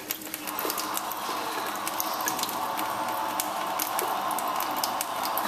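Thin stream of water running from a kitchen faucet into a stainless-steel sink: a steady trickle, with small irregular clicks over it.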